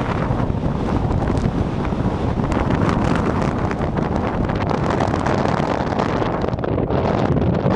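Snowstorm wind blowing hard and steadily, buffeting the microphone with a low rumble under a rushing hiss.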